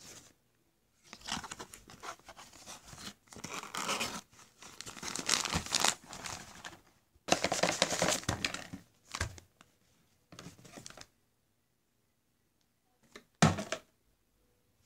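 Plastic toy packaging crinkling and tearing in irregular bursts as it is handled and pulled open, then one short thump near the end.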